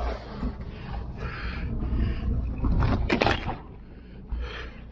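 Heavy fishing gear (a bait bucket and a cooler box) being handled on rock, with a louder clatter and scrape about three seconds in, over a steady low rumble.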